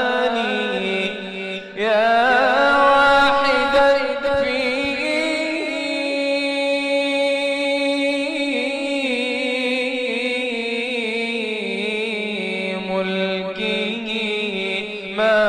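A voice chanting an Arabic devotional ibtihal, drawing out one long melismatic phrase with winding pitch ornaments over a steady held drone note. There is a short break about a second and a half in, then the voice comes back loudly and carries on.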